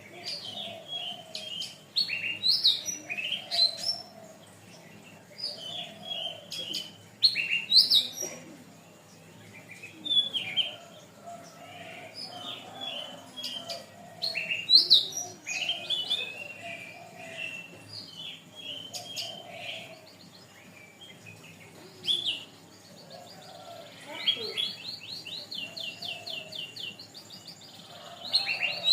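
Domestic canary singing: phrases of quick chirps and warbles, with a long run of fast, evenly repeated notes near the end.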